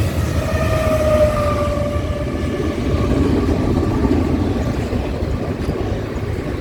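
Long intermodal freight train passing at speed: a steady, loud rumble of wheels and cars, with a thin ringing tone that drifts slightly lower and fades out about halfway through.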